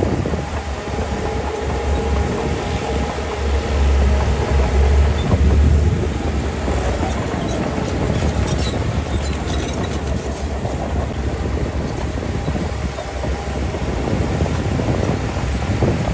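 Diesel engine of heavy earthmoving machinery running under load: a steady deep rumble that swells for a couple of seconds about four seconds in.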